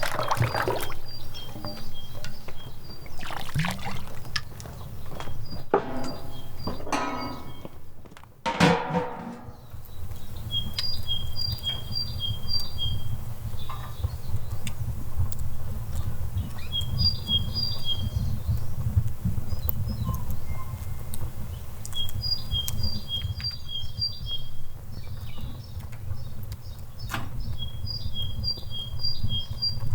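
A songbird repeating a short phrase of high paired chirps every five or six seconds over a steady low rumble. In the first several seconds there are a few louder clattering, splashing handling noises.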